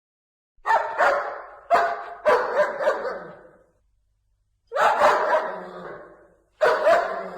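Dog barking in several bursts with pauses between, starting about half a second in, each bark trailing off.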